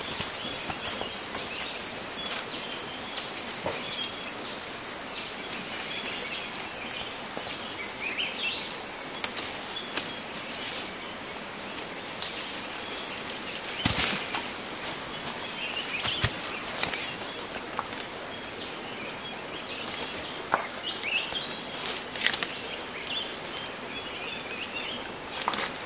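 A high-pitched, rapidly pulsing insect call over forest ambience, stepping down a little in pitch about ten seconds in and fading out around sixteen seconds, with faint bird chirps. Leafy branches rustle, with a few sharp snaps of twigs as branches are pulled down by hand.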